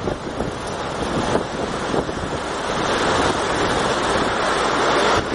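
Storm wind and rain: a steady rushing noise, growing louder about halfway through, with gusts buffeting the microphone.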